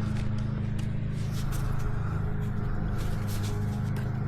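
Mini angle grinder running with a steady hum, grinding down a miniature horse's hoof, with light scratching of the disc on the hoof wall.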